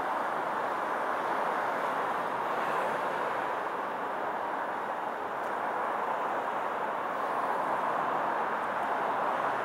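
A steady, even rush of outdoor background noise with no distinct events.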